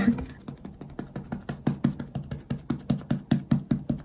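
Makeup puff patted quickly against the face to press in base makeup: a steady run of soft taps, about five a second.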